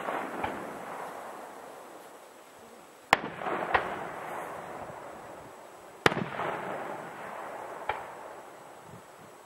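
Aerial firework shells bursting: two loud bangs about three seconds apart, each followed by a rolling echo and a smaller pop.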